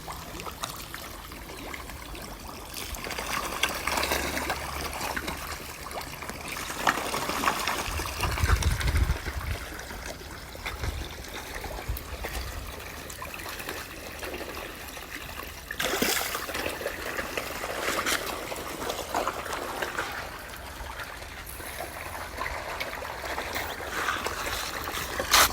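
Water trickling and splashing, rising and falling in strength, with a brief low rumble about eight seconds in.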